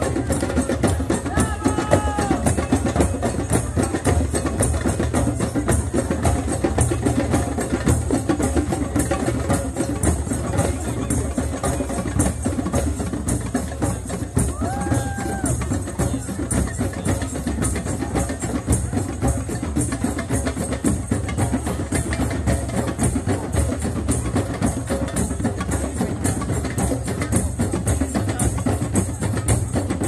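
Rhythmic drumming with a fast, steady beat that plays throughout.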